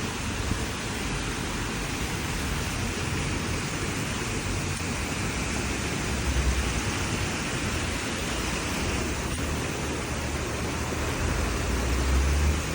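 Everyday outdoor ambience heard through a window: a steady, even hiss, with a low rumble swelling briefly about halfway through and again near the end.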